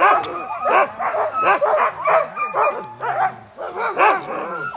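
A team of harnessed sled dogs barking and yipping together, many short overlapping calls without a break: the excited clamour of sled dogs eager to set off on a run.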